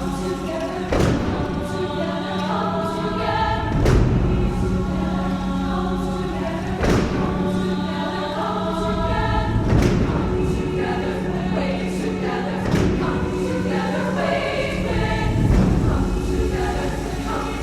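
Choir singing, with a low note held underneath and sharp, loud thumps about every three seconds.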